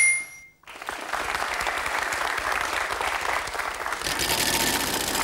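A single bright ding as a letter lights up on a game-show puzzle board, followed by a studio audience applauding.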